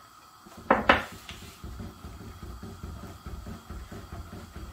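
Two quick knocks of kitchen utensils or containers being handled about a second in, followed by a low, uneven rumble.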